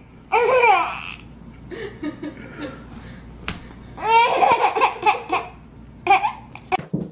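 Baby laughing and squealing in high-pitched bursts, with softer babbling between, a longer run of quick laughs about four seconds in, and a short laugh near the end.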